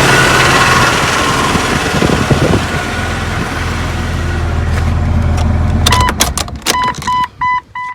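A 2000 Jeep Cherokee's engine idles under a loud steady hiss that fades over the first few seconds, settles to a lower hum, then shuts off about six seconds in. A run of short, evenly spaced high beeps follows.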